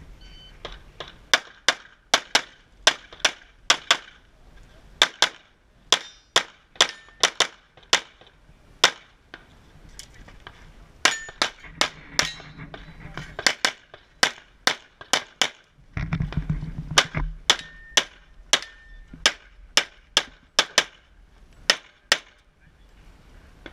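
A string of dozens of pistol shots fired in quick pairs and short bursts, with brief pauses between groups as the shooter moves and changes targets.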